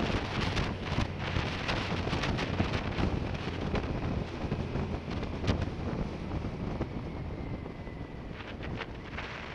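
Wind rushing over the action camera's microphone in uneven gusts, over the low, steady hum of a 2005 BMW K1200S's inline-four engine.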